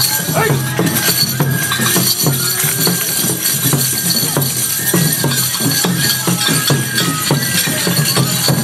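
Hachinohe enburi festival music: a taiko drum keeping a steady beat under the jingling of the metal rings on the dancers' hand-held jangi.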